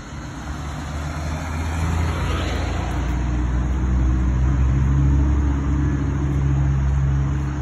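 A motor vehicle engine running steadily, its low hum growing louder over the first few seconds and then holding.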